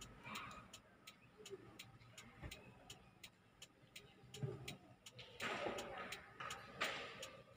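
Car turn-signal indicator clicking steadily inside the car, about three even clicks a second.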